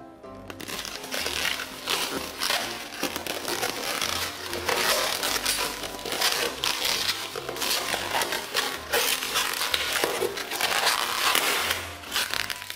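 Latex modelling balloons squeaking and rubbing against each other and against hands as they are twisted and knotted, a dense, irregular run of rubbery squeaks.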